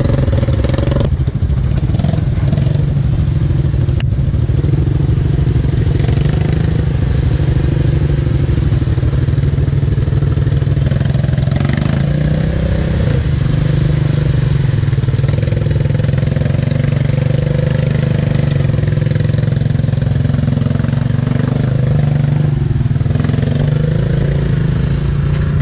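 Off-road vehicle engine running steadily, with no strong revving.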